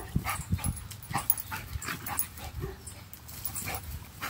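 Two dogs play-fighting: a quick, irregular string of short yips and whimpers mixed with scuffling.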